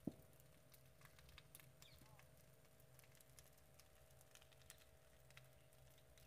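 Faint, irregular crackling and popping of an open fire burning a roadside pile, with one sharper pop just after the start.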